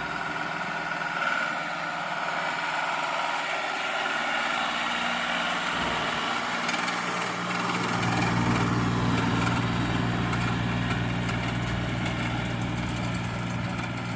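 Tractor engine running steadily as it pulls a round baler through a hay windrow, the low engine hum growing stronger and a little louder about halfway through.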